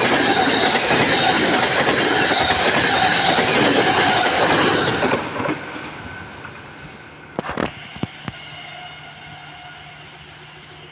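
Sapsan high-speed electric train (Siemens Velaro RUS, EVS1) passing at about 88 km/h: a loud steady rush of wheels on rail and air that fades away about five and a half seconds in. A few sharp clicks follow around two seconds later.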